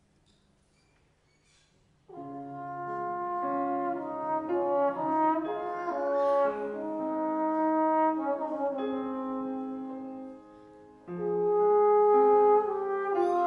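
After about two seconds of near silence, a slide trombone begins a slow, sustained lyrical melody. It breaks off briefly about ten and a half seconds in, then comes back in.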